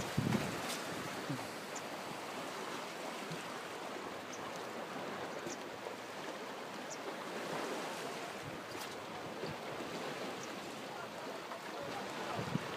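Small wind-driven waves lapping on a lake shore: a steady wash of water. Wind buffets the microphone near the end.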